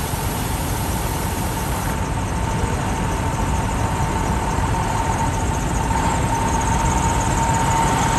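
The 2008 International 7600 dump truck's diesel engine idling steadily: a low rumble with a thin, steady whine above it.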